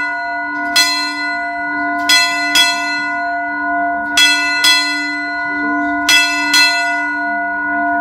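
Brass ship's bell struck by hand in pairs, each stroke ringing on under the next: the traditional eight bells rung at noon. One stroke comes about a second in, followed by three quick pairs.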